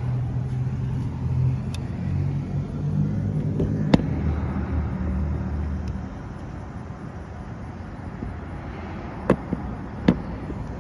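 Road traffic: a motor vehicle's low engine rumble for about the first six seconds, then dying down to a quieter background. A sharp click about four seconds in and two more near the end.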